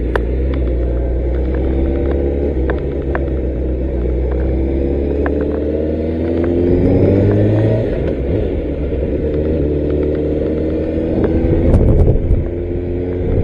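Motorcycle engine running while riding, its pitch climbing several times as it accelerates and dropping back between pulls, over a steady low rumble.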